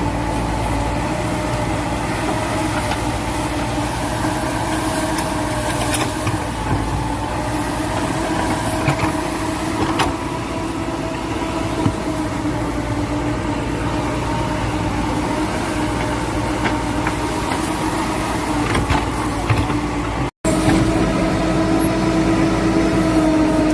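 JCB backhoe loader's diesel engine running steadily, with a few short sharp knocks along the way. The sound drops out for a moment about 20 seconds in.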